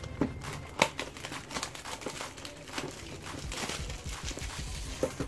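Clear plastic shrink-wrap being peeled and pulled off a smartphone box, crinkling, with many short sharp crackles.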